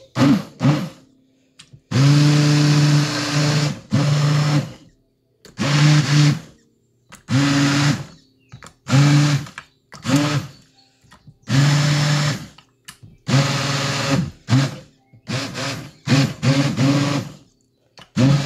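Handheld immersion blender pureeing thick squash soup in a plastic container, switched on and off in about a dozen short bursts, the longest about two seconds. Each burst is a steady motor whir with the blade churning through the soup.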